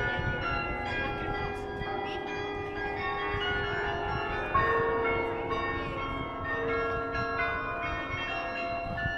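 Carillon bells playing a tune: struck bell notes of many pitches, each ringing on and overlapping the next, with a louder low note about four and a half seconds in.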